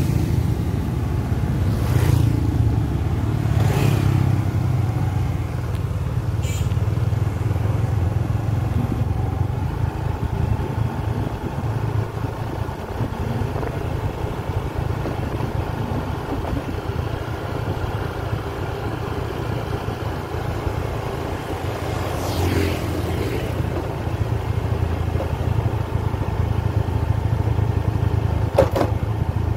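Motorcycle running at a steady pace along a road, heard from the rider's seat as a continuous low rumble, with a few brief sharp knocks or clatters.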